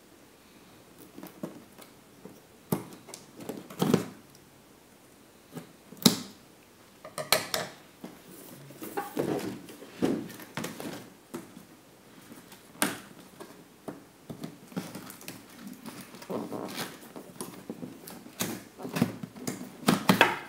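Cardboard box and clear plastic packaging being handled: scissors cutting, the box being slid out of its sleeve, with scattered knocks, scrapes and rustles. The sharpest knock comes about six seconds in.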